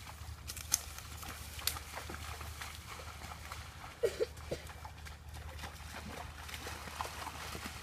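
A gaited mule wading through a shallow creek, its hooves splashing in the water and stepping in mud, with a couple of sharp splashes in the first two seconds. Two short pitched sounds come just after the middle.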